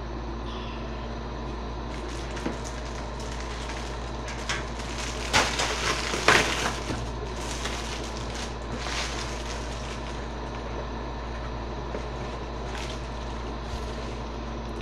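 Clear plastic packaging crinkling and rustling in the hands in irregular bursts, loudest around five to seven seconds in, over a steady low background hum.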